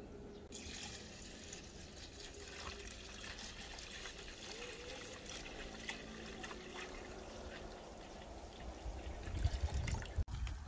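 Coconut milk poured from an aluminium basin through a wire-mesh strainer into another basin: a steady pouring, splashing stream. A few louder bumps near the end.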